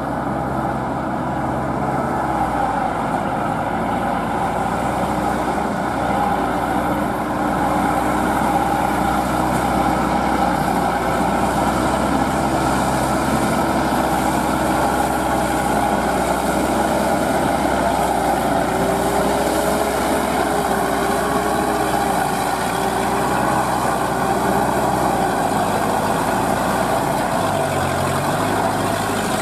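Diesel engine of a crawler-track rotary tiller running steadily under load while tilling a flooded rice field, its pitch dipping briefly near the end.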